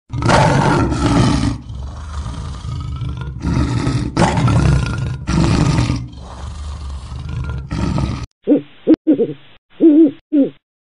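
Lion roaring in a run of loud, rough calls for about eight seconds, then an owl giving four short hoots near the end.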